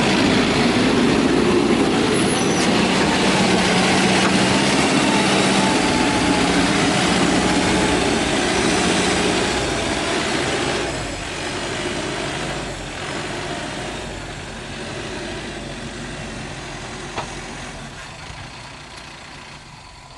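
Heavy diesel machinery running loudly: a dense engine noise with a steady low note and a wavering higher whine, which gradually fades away over the second half.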